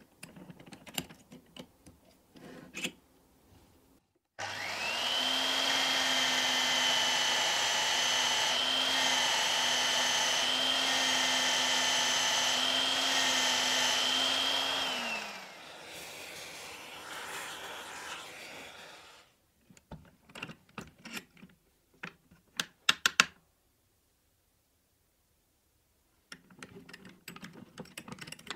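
Homemade drill press running with a Forstner bit boring into a small hardwood block: a steady motor whine that dips briefly a few times as the bit bites, then winds down about fifteen seconds in. Before and after, clicks and knocks of the wooden block and vise being handled.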